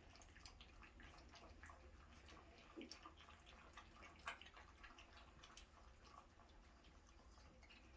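Miniature schnauzer puppies lapping milk from a stainless steel saucer: faint, irregular wet clicks and slurps, with one louder click about four seconds in.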